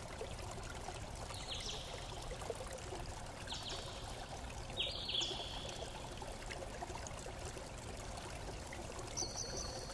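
Steady low hiss with a few faint, short high-pitched chirps scattered through it.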